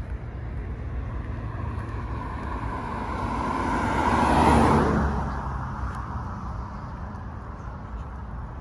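A car driving past: its engine and tyre noise build up, are loudest about four and a half seconds in, then fade away, over a steady low traffic rumble.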